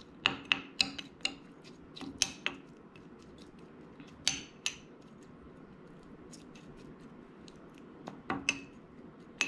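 A spoon clinking and scraping against a small bowl while a chili-garlic fermented-soybean topping is stirred and scooped: a quick run of taps in the first couple of seconds, two more around four seconds in, then a pause and a few more taps near the end.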